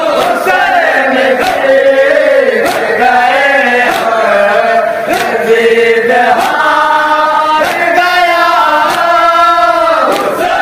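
A noha, a Shia mourning lament, chanted by a group of men in unison behind a lead reciter, amplified through a microphone. Sharp chest-beating slaps (matam) land about once every 1.2 seconds and keep the beat.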